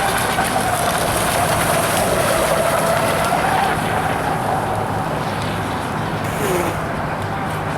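Radio-controlled Miss Geico model racing boat running at speed, its motor making a steady, slightly wavering whine over a high hiss, both easing off a little in the second half.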